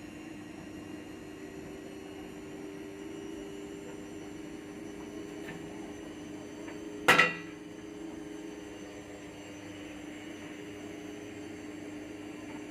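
A steady hum runs throughout. About seven seconds in there is a single loud, sharp metallic clank that rings briefly.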